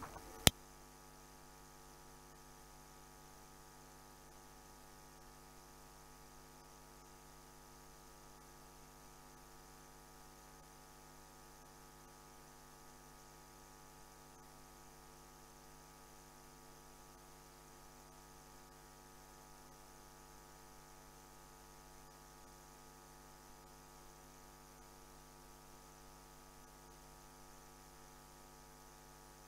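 Faint, steady electrical mains hum in the audio line, with no other sound apart from a single sharp click about half a second in.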